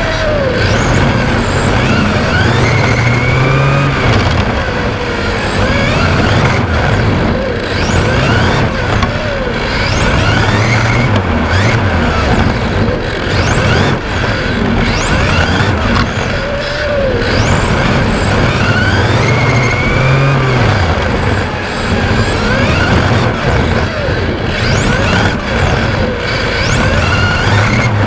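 Brushless electric motor of a 1/10 RC touring car (LRP X20 4.5-turn) whining, its pitch sweeping up again and again as the car accelerates out of corners and falling off between, over a steady rush of tyre and wind noise.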